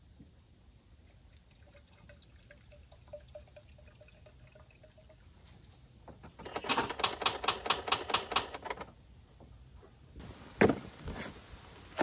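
Brake fluid poured from a bottle into the master cylinder reservoir: faint trickling at first, then a loud, rapid glugging of about five pulses a second for a couple of seconds past the middle. A single knock near the end.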